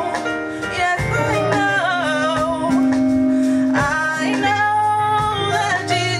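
Praise and worship music: male and female voices singing over instruments, with a steady bass line and a long held low note from about two seconds in.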